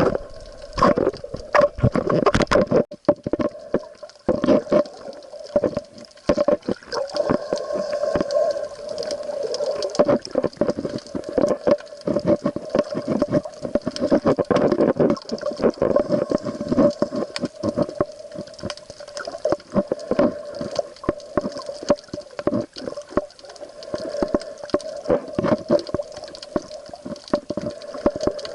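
Water noise on a camera in the sea: dense irregular crackling and knocks over a steady low hum.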